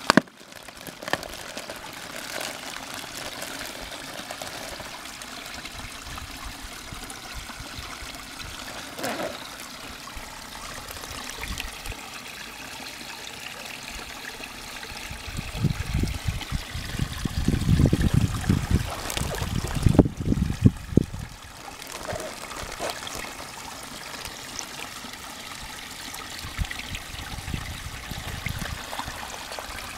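Water trickling and splashing in a garden pond as a plastic bag is emptied and goldfish are let out by hand. About halfway through comes a stretch of louder low rumbling and knocks, the loudest part.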